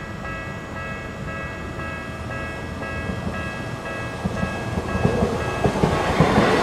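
Japanese level-crossing warning bell ringing in a steady, fast ding-ding, about two strikes a second. Over the last couple of seconds an approaching train's rumble grows louder and drowns the bell.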